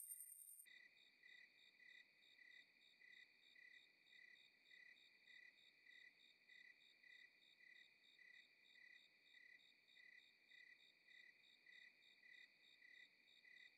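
Faint crickets chirping, a steady even pulse of about three chirps a second that starts abruptly just under a second in.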